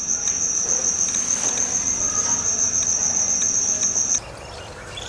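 Crickets chirring steadily at a high pitch, cutting off suddenly about four seconds in, leaving a quieter background.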